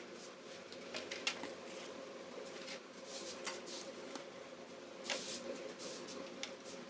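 Small irregular clicks and brief scraping sounds of hand work on small parts, over a steady low hum.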